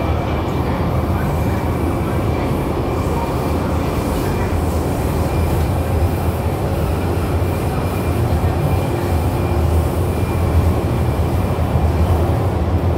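Puzhen A-type electric metro train running underground, heard inside the passenger car: a steady low running noise from wheels and running gear, with a faint steady high tone over it.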